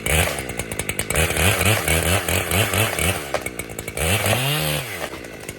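Chainsaw revving and cutting, its pitch surging up and down in quick pulses, with one long rev about four seconds in before it drops back to idle near the end. The saw is cutting through the hinge wood so the leaning tree can be dropped in the chosen direction.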